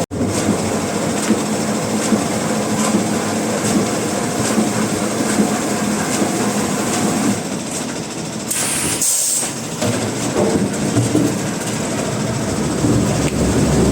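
Sawmill machinery running with a steady rattling clatter, with a brief hiss near the middle.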